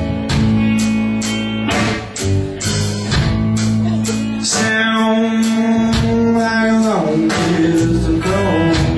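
Electric blues band playing live, electric guitar to the fore, with a long held note in the middle.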